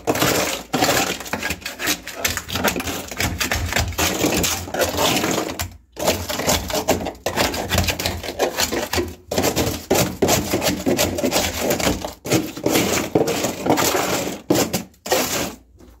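Loose, half-melted ice and frost being scraped and shoved across the aluminium-lined floor of a defrosted chest freezer: a continuous crunching and scraping, broken by a few brief pauses.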